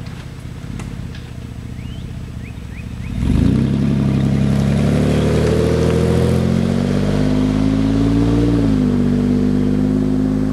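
A 2007 Pontiac G6 GT's 3.5 L V6 through a Classic Performance GT-R aftermarket exhaust idles, then accelerates hard from a standstill about three seconds in. The pitch climbs steadily, dips briefly as it shifts up, and then holds steadier as the car pulls away.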